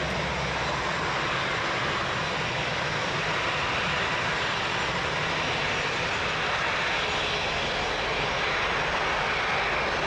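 Airbus A330neo's Rolls-Royce Trent 7000 turbofan engines: steady jet noise of the airliner close by, growing slightly louder near the end.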